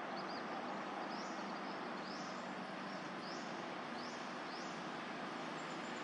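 A bird calling a series of short, high, rising notes, about one a second, over a steady background hiss.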